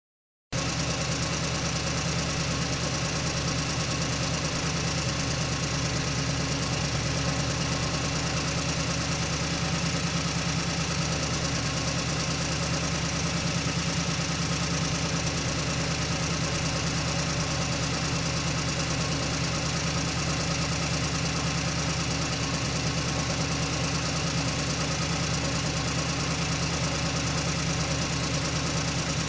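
Truck engine running steadily as the truck drives slowly, heard from inside the cab: a constant low engine hum with a even noise over it.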